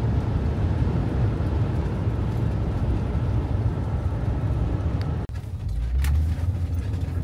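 Vehicle driving: a steady engine and road rumble with hiss. About five seconds in it cuts off abruptly to a duller, deeper rumble.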